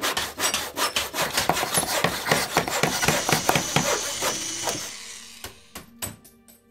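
Logo sound effect: a run of fast, scratchy rubbing strokes, several a second, like a tool or pencil working on wood or paper. They fade out after about five seconds, and a few short clicks follow near the end.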